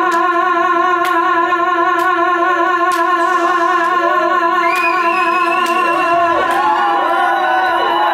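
A female singer holding one long, high note with steady vibrato at the end of a song. From about halfway through, whoops and cheers from the audience start to rise under the held note.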